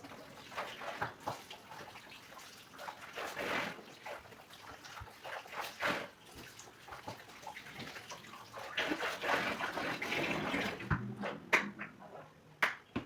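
Water splashing and sloshing as things are being washed, with irregular clatter and a few sharp knocks near the end.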